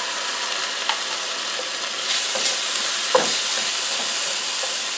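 Chopped celery, onion and garlic sizzling in butter in a pan on medium-high heat, stirred with a wooden spatula that knocks and scrapes against the pan a couple of times. The sizzle grows a little louder about two seconds in.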